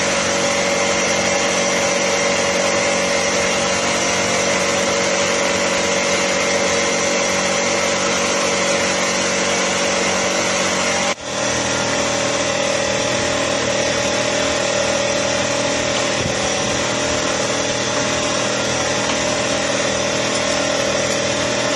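A small engine running at a steady speed, an even, unchanging drone with a brief dropout about eleven seconds in.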